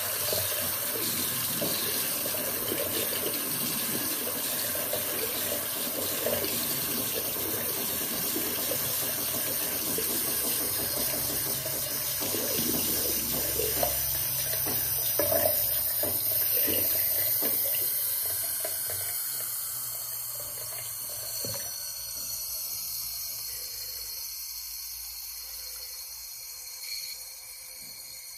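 Bathroom tap running lukewarm water into a sink basin, a steady rush that grows gradually quieter over the last ten seconds.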